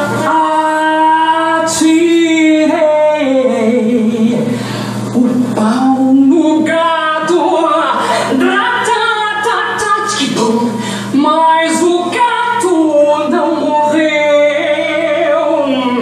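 A recorded song with a sung lead vocal, holding long melodic notes over light accompaniment, played loud for a drag lip-sync.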